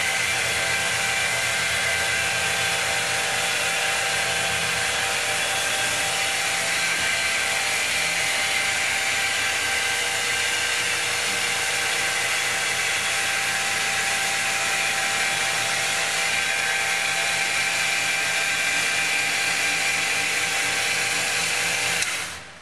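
Handheld Flex electric polisher running steadily with a high motor whine, its spinning abrasive disc grinding and honing a vertical stone wall. It winds down and stops near the end.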